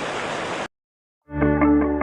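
A steady rushing noise cuts off abruptly, and after half a second of silence music starts, with repeated chords of layered pitched notes.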